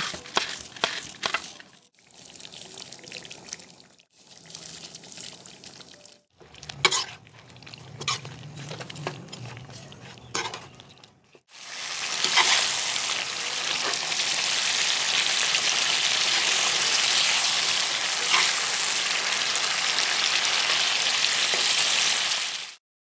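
Food frying in hot oil in a pan. First comes a string of short, quieter stretches with clicks and knocks, as of stirring. About halfway through, a loud steady sizzle starts and runs until it cuts off abruptly near the end.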